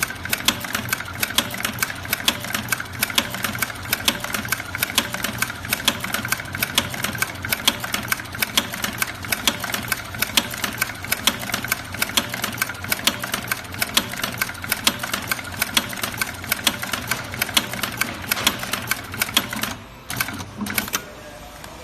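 Program-controlled post-bed double-needle sewing machine, with rotary needle bar and compound feed, sewing at speed: a fast, steady mechanical clatter. It stops near the end, and a quieter steady hum is left.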